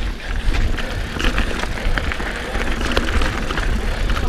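Trek Roscoe 8 mountain bike rattling over a rocky dirt trail: a steady run of clicks and clatter from the chain and frame, over a heavy rumble of wind buffeting the camera microphone.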